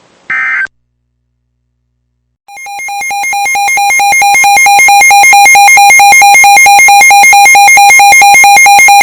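Weather radio receiver's built-in alert alarm: a loud, rapidly pulsing electronic beep that swells in loudness over its first two seconds and then holds, signalling that a new warning has been received. A short burst of tone comes about half a second in, followed by a brief silence before the alarm starts.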